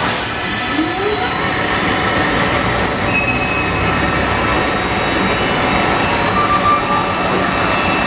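Guardrail forming machine running, steel strip feeding through its rollers: a loud, steady mechanical noise with thin, high metallic squeals that come and go.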